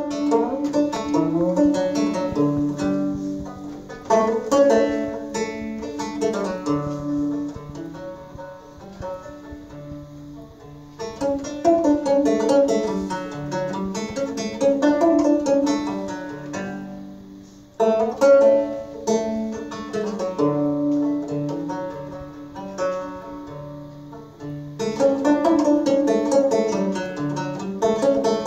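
Open-back banjo played as an instrumental, dense plucked notes in phrases that come back about every seven seconds, each starting loud and fading.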